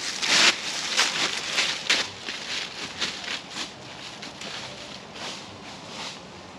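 Footsteps and trekking-pole strikes crunching through dry fallen leaves on a hiking trail, loud at first and fading as the hiker walks away uphill.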